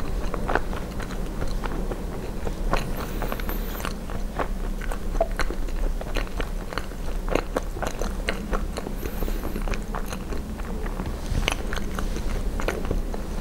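Close-miked chewing and biting of poutine (fries, cheese curds and gravy), a steady run of wet, irregular mouth clicks and soft crunches.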